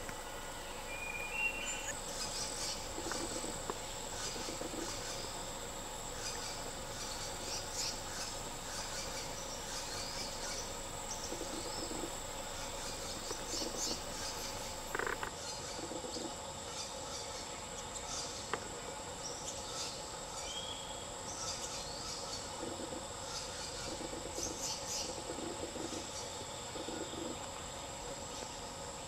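Forest insects droning steadily at a high pitch, with scattered short bird chirps over them.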